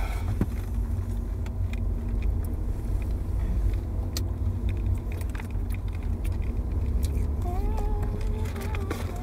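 Low steady rumble of a car running, heard from inside the cabin, with scattered crinkles and rustles of takeaway food packaging.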